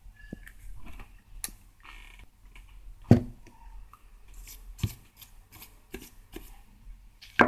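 Scattered clicks and knocks of a cassette deck mechanism being handled on a workbench, with a louder knock about three seconds in and another near the end.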